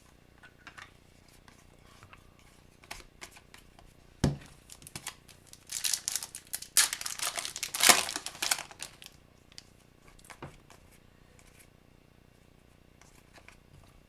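A hockey card pack's wrapper being torn open and crinkled, dense for about three seconds in the middle, with a single knock just before it. Light clicks of cards being handled come before and after.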